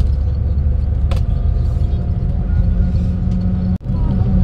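Sleeper bus engine and road noise heard from inside the cabin: a steady low rumble while driving, with a steady drone joining about halfway through. There is a brief click about a second in, and the sound drops out for an instant near the end.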